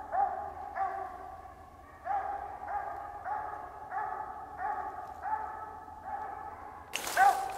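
Walker coonhound barking steadily at a tree, about two barks a second, muffled by distance: the rhythmic chop of a hound treed on a squirrel. Near the end, footsteps crunch through dry leaves close by and the barks come louder.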